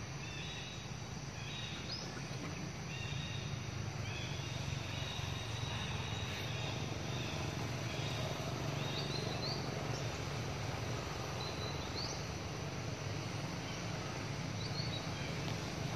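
Forest ambience: a steady background hiss with a low hum under it. Short high-pitched calls repeat over it, first as a run of steady notes and then, later, as a few brief rising chirps.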